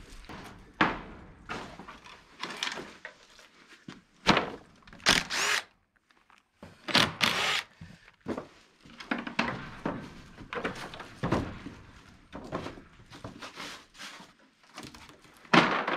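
Old wooden stall boards being pried and knocked loose by hand: irregular knocks and thuds, with a few longer, louder creaking pulls, the loudest near the end.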